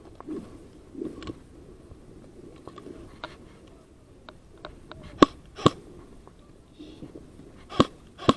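Scattered single airsoft gun shots: sharp cracks, faint at first, then four loud ones in the second half.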